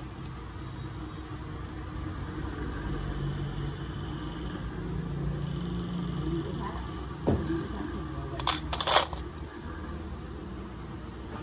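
Steel pedicure tools clinking: one sharp click about seven seconds in, then a quick cluster of metallic clinks a second later, over a steady low hum.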